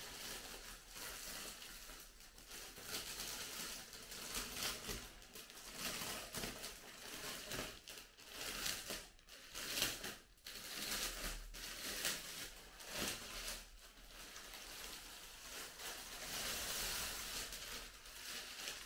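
Clear plastic packaging bag crinkling and rustling as it is worked off a round fabric-covered pouch, with sharp crackles throughout.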